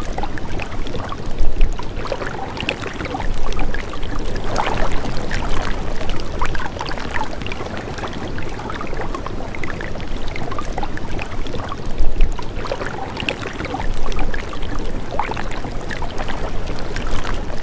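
Running water, gurgling and lapping, with many small splashes and a few louder surges.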